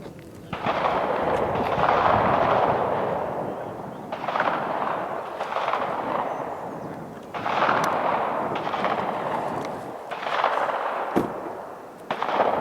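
Rifle shots on a 300 m range, fired irregularly a second or more apart, each a sharp crack followed by a long echo that fades over a second or two.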